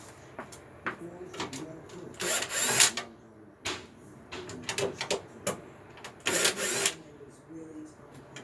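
A cordless drill runs in two short bursts of under a second each, backing screws out of a window air conditioner's bracket, with scattered clicks and knocks of handling the unit's parts between them.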